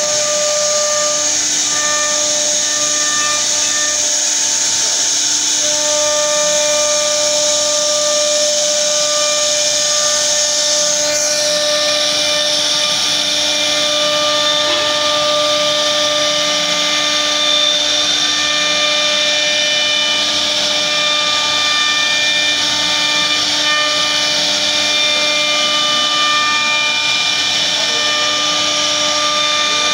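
CNC router spindle running while its bit carves a relief pattern into wood: a steady high hiss of cutting with whining machine tones that drop in and out. The hiss shifts lower about eleven seconds in.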